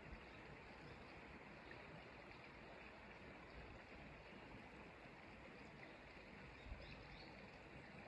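Faint, steady rushing of a shallow, clear stream flowing over pebbles, with one brief low bump near the end.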